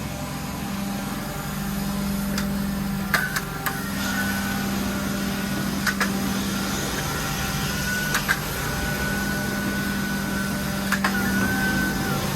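Carpet cleaning extraction machine running with a steady motor hum. Sharp clicks come every two to three seconds, and a high whistle sets in and drops out with them.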